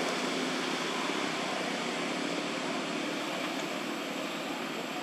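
Steady, even background noise with a thin, high steady tone running through it; no distinct calls or knocks stand out.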